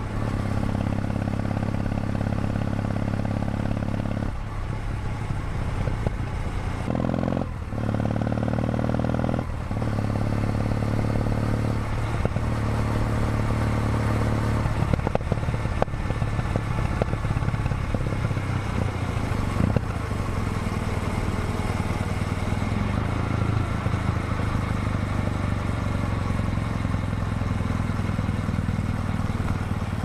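Kawasaki W800's air-cooled parallel-twin engine running under way on the move, its note breaking briefly a few times in the first dozen seconds and then holding steady, over a constant hiss of wind and tyres on the wet road.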